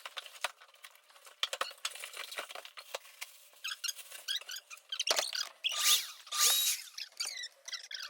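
Handling noise from unboxing tools: scattered clicks, taps and rustling of packaging, with two louder scraping rips about six seconds in.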